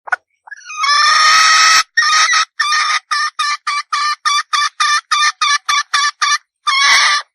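Red junglefowl hen calling: a long drawn-out squawk, then a fast run of short clucks at about three to four a second, and another drawn-out note near the end.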